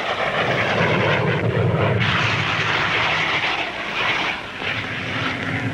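Delta-wing jet aircraft flying overhead: a steady engine roar that grows louder about two seconds in.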